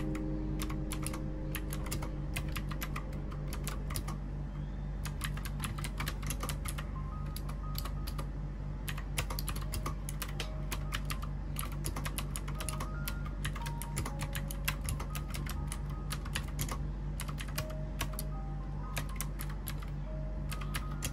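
Steady, fast typing on a retro-style keyboard with round typewriter-style keycaps: a continuous run of irregular key clicks. Soft background music plays underneath.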